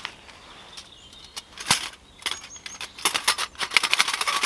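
Stainless steel Bushbox XL folding wood stove being unfolded and fitted together: its metal panels clink and rattle in a quick run of sharp metallic clicks through the second half, after a few scattered knocks.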